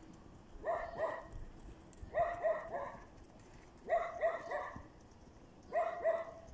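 Dog barking in repeated bursts of two or three barks, about every couple of seconds, four bursts in all.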